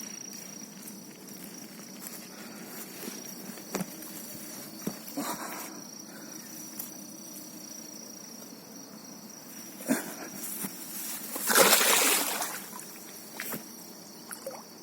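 Crickets chirring steadily at a high pitch, with a few knocks and a loud burst of water splashing about twelve seconds in as the released bighead carp thrashes in the water.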